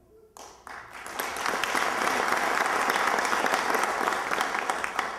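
Audience applauding: many hands clapping in a dense patter that builds within the first second, holds steady, and fades near the end.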